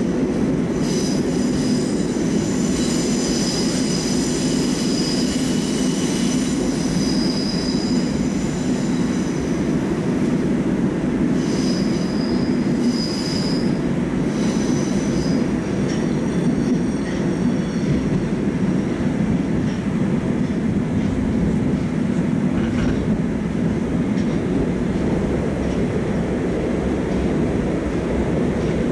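Moscow metro "Oka" train running between stations: a steady heavy rumble of wheels on rail, with high-pitched wheel squeal for several seconds near the start and again briefly about halfway.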